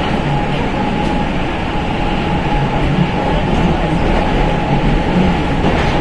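Prague Metro Line B train (81-71M stock) running at speed: a steady, loud rumble and rush of wheels on rail. A thin steady whine fades out about a second in.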